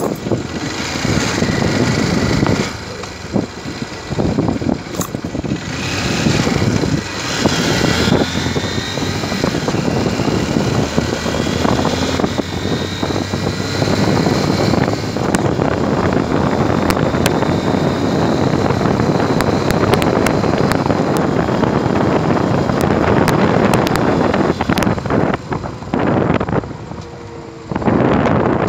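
Motorcycle riding along a street: engine running under a loud rush of wind on the microphone. The noise drops away near the end as the bike slows.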